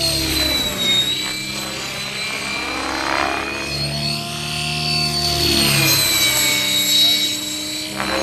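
Radio-controlled Kasama Srimok model helicopter in flight: its engine and rotor whine rises and falls in pitch as it manoeuvres and sweeps past.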